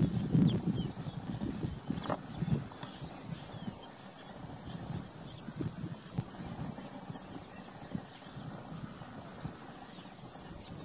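Steady high-pitched insect buzz from an outdoor insect chorus, with short faint chirps repeating about once a second. A few low knocks sound in the first second.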